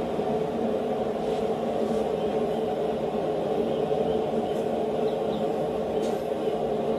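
A steady whirring mechanical drone, like a running blower or fan, with a few faint clicks of steel tools being set in place.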